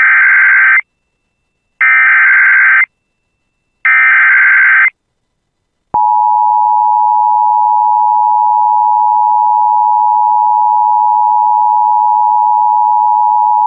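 Emergency Alert System tones: three one-second bursts of SAME digital header data, about a second apart. About six seconds in comes the steady two-tone EAS attention signal, which holds to the end. Together they announce a National Weather Service severe thunderstorm warning.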